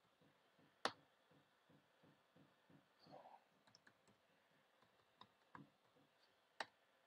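A few sparse clicks of computer keyboard keys: a sharp one about a second in, a handful of faint ones in the middle and another sharp one near the end, with near silence between.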